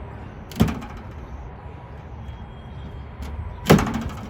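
Two sharp knocks about three seconds apart, the second one louder, over a steady low background hum.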